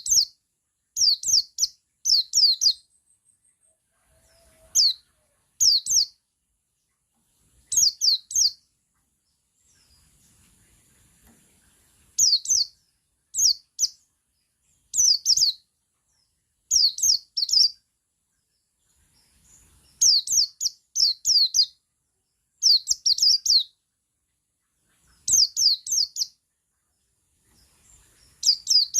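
Male buxtoni white-eye (pleci buxtoni) singing its 'ngalas' song: short bursts of two to five quick, high, downward-sweeping chirps, repeated every second or two with pauses between.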